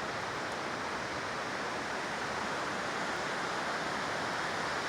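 Steady rushing of a nearby creek, an even roar of moving water with nothing else standing out.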